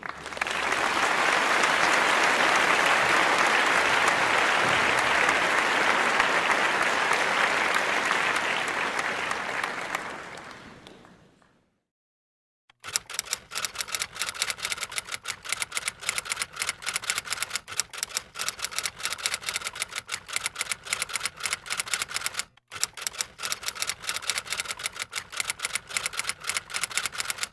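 Applause that fades out over its last couple of seconds, then, after a short silence, a fast run of typewriter keystroke clicks used as a sound effect, with one brief break partway through.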